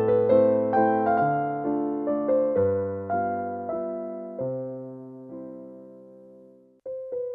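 Background music: a slow, gentle piano melody of single struck notes that ring and die away. The notes thin out and fade, then cut off abruptly near the end and a new phrase begins.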